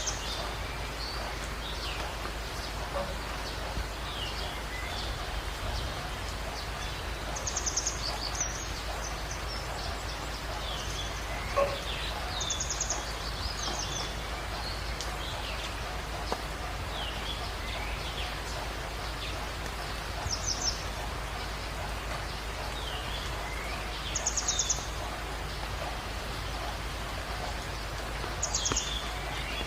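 Steady patter of rain with birds chirping, and a short high trilling call that recurs every few seconds.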